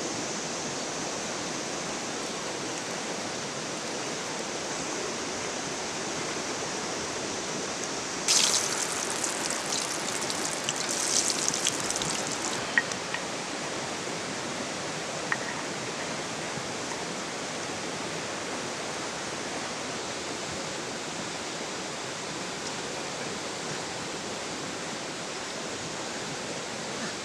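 River water flowing steadily. About eight seconds in comes a few seconds of louder crackling and rustling, followed by a couple of sharp clicks.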